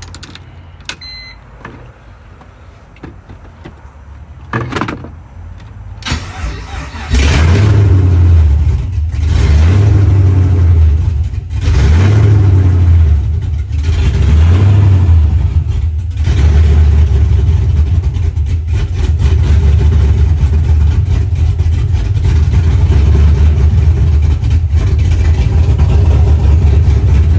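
LS V8 swapped into a BMW E46 starting about seven seconds in, revved a few times, then running loud and steady. It is the sign that the no-crank, no-start is cured by replacing a blown relay fuse.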